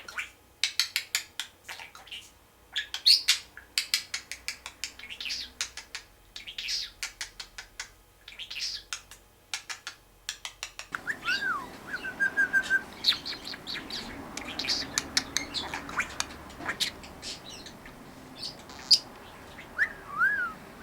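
Pet budgerigar chattering in rapid short chirps, with a few whistled notes in the second half. A low background hum comes in about halfway.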